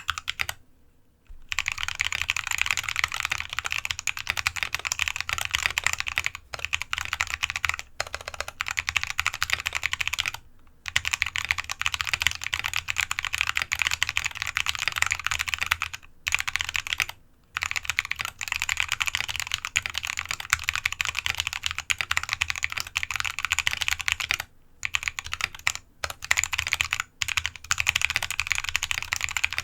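Fast typing on a modded Anne Pro 2 mechanical keyboard with lubed Halo Clear tactile switches, a steel plate, an aluminum case with dampening foam and XDA PBT keycaps, resting on a desk mat. A dense run of keystrokes, broken every few seconds by short pauses.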